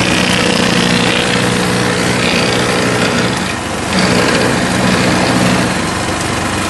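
Powerhorse 420cc wood chipper/shredder running, its single-cylinder gas engine humming steadily under a grinding rasp as a branch is fed through. The engine sound sags briefly a little past the middle, then picks back up.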